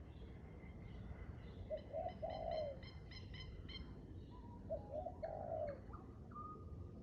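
A dove cooing: a low phrase of two short notes and a longer arched note, heard twice about three seconds apart. Other birds chirp and whistle higher up between the phrases.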